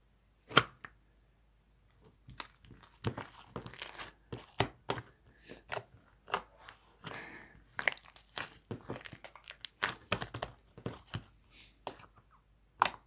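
Slime being squeezed and stretched by hand, giving one sharp pop about half a second in, then from about two seconds on a busy run of crackling clicks and pops.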